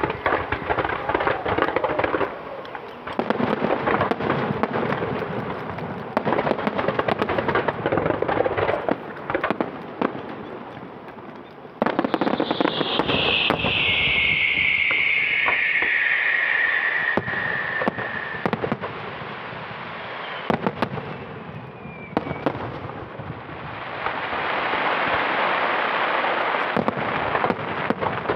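Aerial fireworks display: rapid volleys of bangs and crackle from bursting shells. Near the middle a loud whistle falls in pitch for several seconds, and near the end there is a spell of rushing hiss and crackle.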